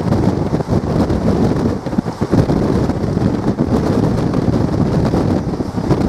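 Passenger train running at speed: wind buffeting the microphone over the steady rumble of the coach on the track.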